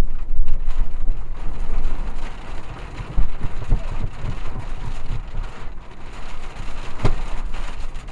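Steady rumbling wind and vehicle noise, heaviest in the low end, with a few low thumps and a sharp knock about seven seconds in.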